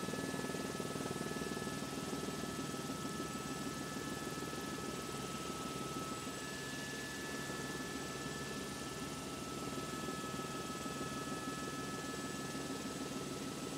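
Helicopter engine and rotor noise from inside the cabin: a steady drone with a faint, steady high whine over it.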